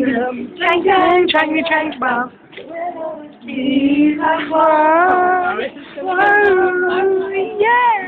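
Girls singing unaccompanied: short phrases at first, then long held notes in the second half.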